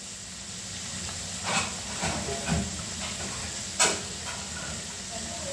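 Chicken pieces frying in oil in a wok, a steady sizzle. Two sharp clicks come about one and a half seconds in and near four seconds in; the second is the loudest sound.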